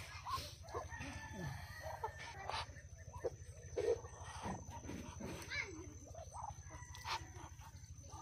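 Farm poultry calling: a scatter of short calls, the loudest about four seconds in, over a steady low hum.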